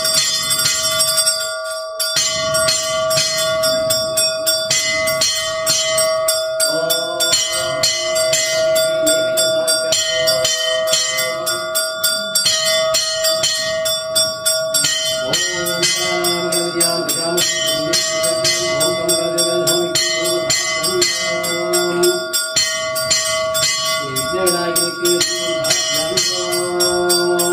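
Puja bell rung rapidly and continuously during Hindu temple worship, fast regular strokes over a steady ringing tone. From about seven seconds in, lower held tones that shift in pitch now and then sound beneath the bell.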